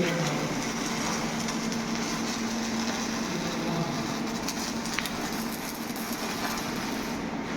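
Electric arc welding: a steady frying hiss from the arc with occasional small crackles, over a low steady hum.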